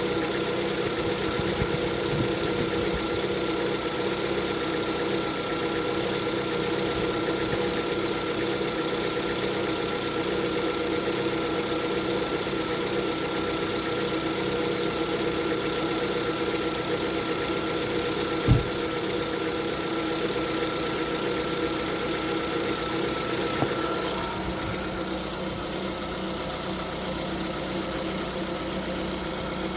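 Lada Vesta engine idling cold with a knocking that the owner takes for piston knock at only 11,000 km. A single sharp thump comes about two-thirds of the way through, and the engine runs a little quieter for the last few seconds.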